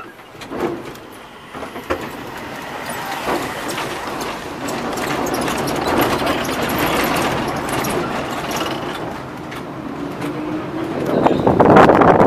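Restored 1909 tram's running noise from inside its wooden car, the wheels on the rails and the motors, with a few knocks early on, then growing louder over the first few seconds and holding steady. Near the end a louder rush as a modern tram passes close alongside.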